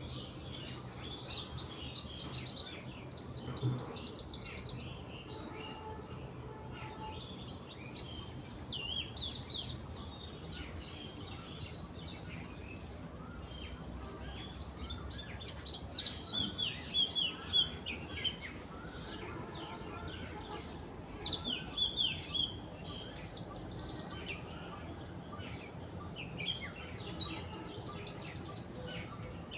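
Small garden birds chirping and twittering, with short quick calls coming in busy clusters every few seconds over a steady low background hum.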